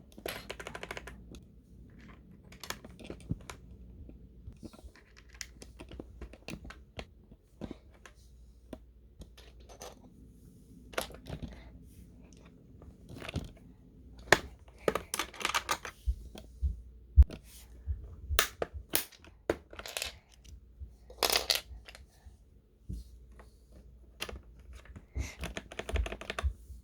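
Irregular plastic clicks, snaps and knocks as keycaps are pressed onto a Dareu EK75 mechanical keyboard. They come sparsely at first and more densely in the second half, with a few low thuds.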